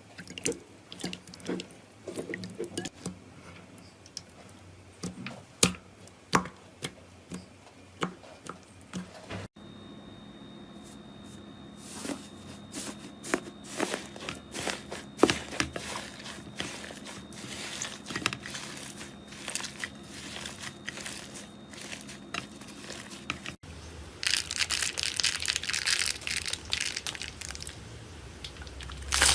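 Slime being squeezed and poked by hands: sparse sharp pops and clicks, then denser sticky crackling over a faint steady hum, and near the end a dense, louder crinkly crunching.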